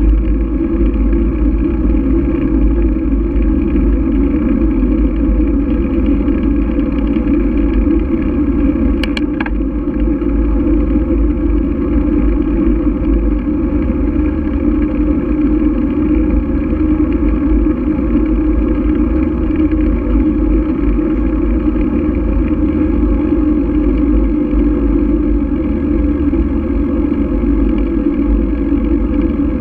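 Steady, unchanging road and wind noise of riding along a paved street, heard through a low-mounted action camera, with one short sharp click about nine seconds in.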